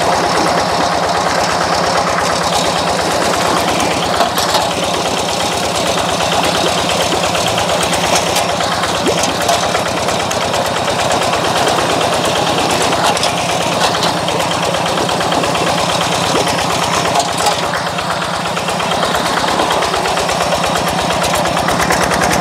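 Two-wheel hand tractor's single-cylinder diesel engine running steadily with a fast, even chugging while the machine ploughs through flooded mud, with a few short sharp clicks on top.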